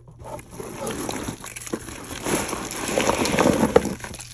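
A large mixed lot of costume jewelry (metal chains, beads, brooches and bangles) clattering and clinking as it is tipped out and spread by hand, a dense rattle of many small clicks that grows busier near the end.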